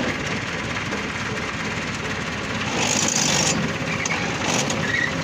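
An engine running steadily with a noisy rattle, a little louder about three seconds in.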